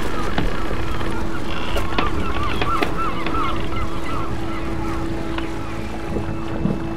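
Show soundtrack: a fast run of wavering, goose-like honking calls over a steady hum and a hiss, with a few sharp clicks; the calls thin out and stop a little past the middle.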